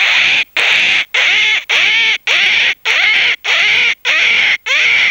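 A man imitating a myna's call by mouth: a steady run of loud, harsh calls, each about half a second long, repeated about twice a second.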